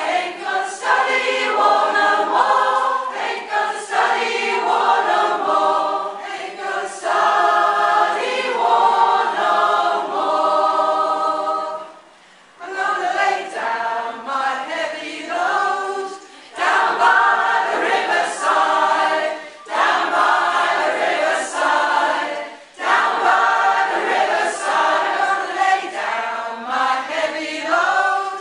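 A large group of community singers, mostly women, singing a song together as a choir, in long held phrases with brief breaks for breath, the longest about twelve seconds in.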